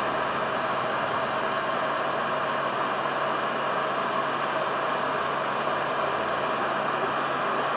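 Electric heat gun running steadily, blowing hot air onto the aluminium crankcase of a small nitro RC engine: a constant rush of air with a faint steady motor hum underneath.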